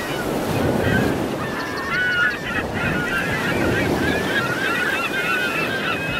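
A flock of geese honking, many calls overlapping continuously, over a steady low rushing noise.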